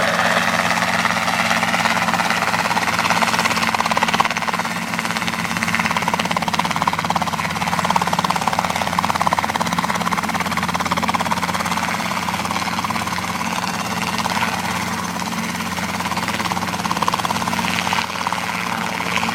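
Robinson R22 helicopter hovering low, its piston engine and two-bladed main rotor running steadily with a rapid, even chopping beat.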